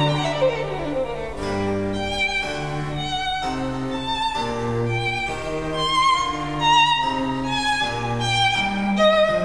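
Background music played on bowed strings: a violin-like melody over a low bass line, the notes changing about every half second, with a falling glide about half a second in.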